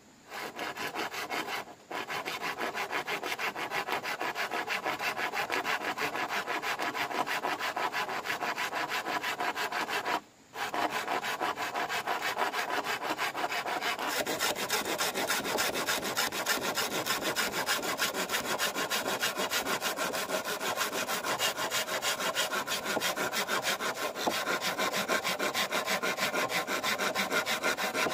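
Hand saw cutting through bamboo in quick, even back-and-forth strokes, with two brief pauses: one about two seconds in and one about ten seconds in.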